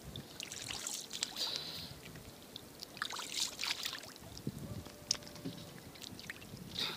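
Water splashing and lapping against the side of a small boat, with scattered light knocks and clicks.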